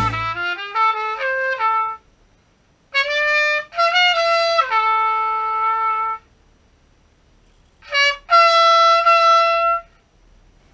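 Solo trumpet playing unaccompanied phrases: a quick run of notes stepping downward, then after a pause a short phrase that settles on a held lower note, and near the end a long sustained note.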